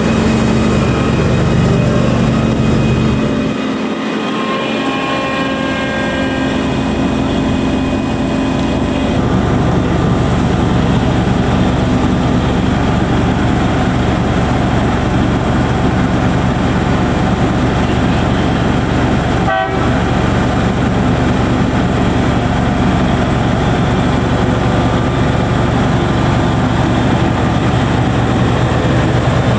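Diesel engine of a rail track motor car running steadily with a low engine hum as the car moves slowly along the track. A few higher tones sound a few seconds in, the engine note changes about nine seconds in, and there is a single click about twenty seconds in.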